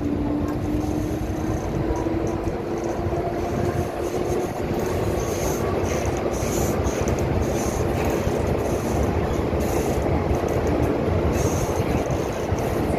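MTR M-Train electric metro train running: a steady rumble of wheels on the track with a faint tone that rises slightly in the first few seconds, then holds.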